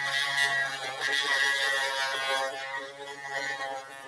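Small pen-style electric rotary tool running with a fine, steady whirring whine, its bit grinding out the plastic socket in an action figure's hand to take a larger ball peg.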